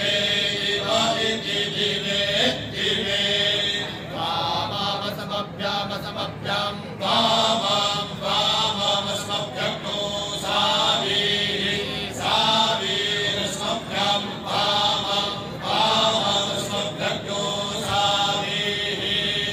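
A group of men reciting Vedic Sanskrit mantras in unison into a microphone, in continuous rising and falling chanted phrases.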